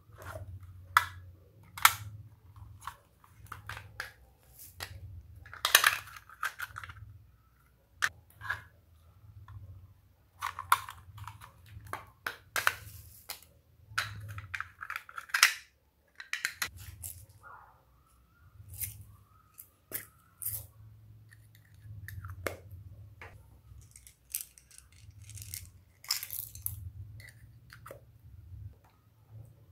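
Slime mixed with clay and foam beads being squeezed and pressed by hand: irregular wet squelches and sharp crackling clicks.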